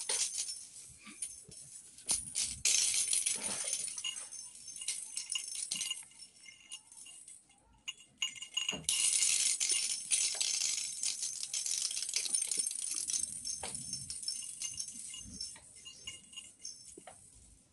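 A small bell inside a cat's toy ball jingling and rattling unevenly as a cat bats and chases it across a wooden floor, with a short lull about halfway through.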